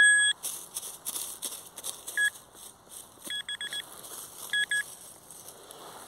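Handheld metal-detecting pinpointer beeping: one long beep at the start, then short beeps, including a quick run of about five in the middle and a pair near the end, the alert that the probe is close to a metal target. Dry leaves crackle and rustle between the beeps as the ground is searched by hand.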